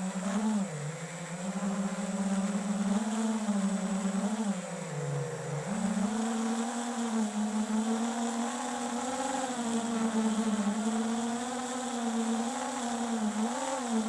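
Flywoo FPV drone's brushless motors whining, the pitch wavering up and down with throttle. About five seconds in, the pitch dips and then climbs back.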